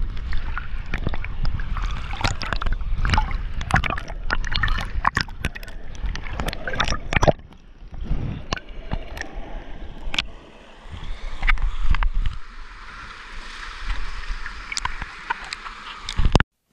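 Pool water sloshing and splashing against a waterproof camera held at the surface, with many sharp splashes and knocks in the first half. About halfway through it quietens to softer lapping and a steady hiss.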